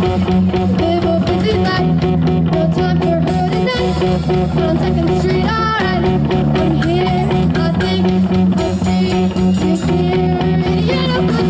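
Live rock band playing: electric guitar and bass guitar over a drum kit, with a sung vocal at the microphone. A sharp rising note sounds about halfway through.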